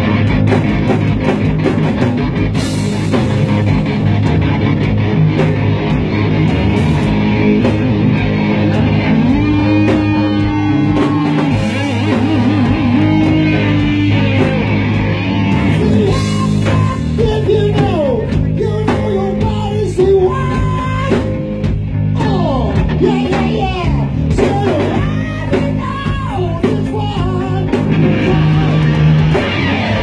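Live hard rock band playing loudly: distorted electric guitars, bass guitar and drum kit, with bending, gliding lead lines through the second half.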